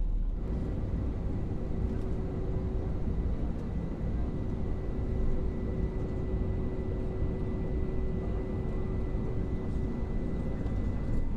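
Steady cabin noise inside an Airbus A321neo: a constant low rumble of engines and airflow with a faint steady whine, starting abruptly about half a second in.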